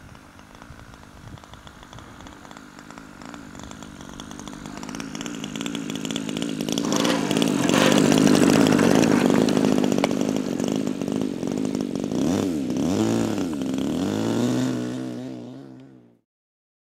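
Engine of a radio-controlled PT-19 scale model airplane at low throttle, growing louder as the model comes in to land and rolls along the grass. Near the end its pitch swings down and up a few times before it settles into a steady run and cuts off suddenly.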